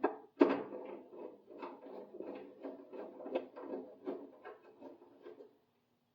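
Light knocks and rattles of tools and small parts being handled on a workbench, a quick irregular clatter of two or three strokes a second that stops shortly before the end.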